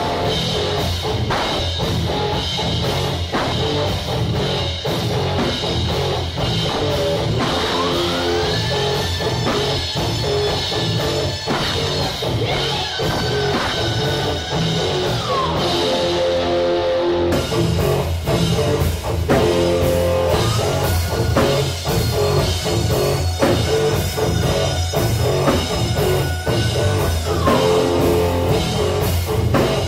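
A rock band with drum kit and electric guitar playing very loud at rehearsal, recorded through a phone's built-in microphone. The sound of the recording changes abruptly about 17 seconds in, where the treble suddenly fills out.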